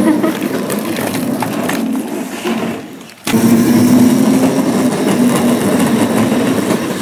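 Wheels of a child's ride-on twist car rumbling steadily as it rolls over the ground; the sound drops away briefly about three seconds in, then comes back.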